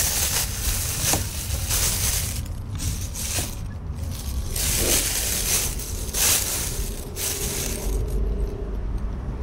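A thin plastic bag crinkling and rustling in repeated spells as a hand rummages in it and unwraps a pastry, over a steady low rumble.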